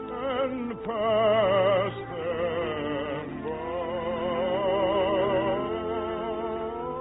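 Soprano singing a slow, sustained operatic melody with wide vibrato, accompanied by orchestra, on an old radio recording with a muffled, narrow sound.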